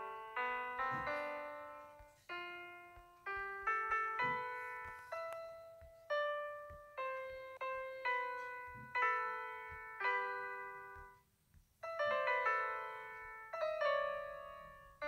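Background music: a piano melody of single struck notes that ring and fade, with a brief pause about eleven seconds in.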